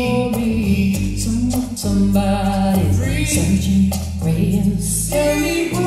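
A vocal pop song, a woman singing over steady bass, played back through L-Acoustics SYVA column loudspeakers with SYVA LOW bass modules, all driven by a single LA4X amplifier, with the subwoofer muted.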